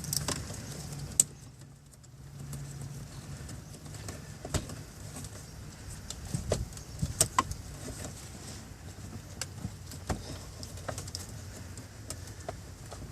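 Scattered small clicks and rattles of plastic and wiring as a 24-pin wiring connector is unlatched by its bottom clip and worked out of the body control module under a 2005 Cadillac Escalade's steering column, over a low steady hum.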